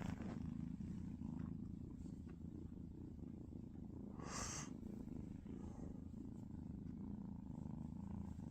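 Kitten purring steadily and low while suckling on its own fur. A brief soft noise comes about four seconds in.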